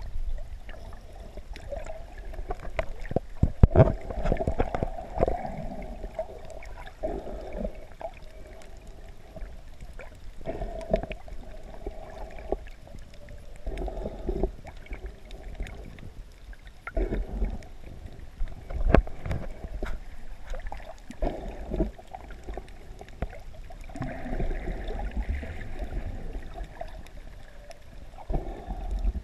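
Muffled water sound heard through a GoPro's waterproof housing while snorkeling: sloshing and gurgling that swells and fades every few seconds, with scattered sharp clicks and knocks.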